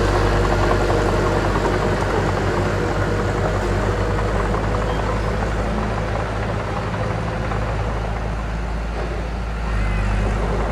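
Mini bulldozer's diesel engine running steadily under work, easing slightly past the middle and picking up again about a second before the end.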